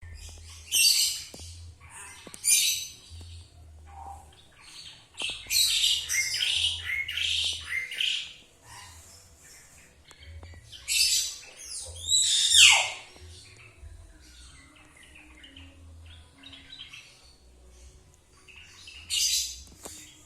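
Caged songbirds, a hill myna, an Asian pied starling and a yellow-vented bulbul, calling in loud separate bursts of chatter and whistles. About twelve seconds in, one long whistle slides steeply down in pitch.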